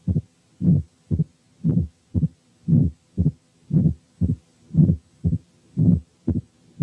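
Recorded heart sounds from a patient with mitral stenosis, about one beat a second. Each beat is a longer, louder sound followed by a short, sharp one: the presystolic murmur of mitral stenosis leading into the first heart sound, then the second sound.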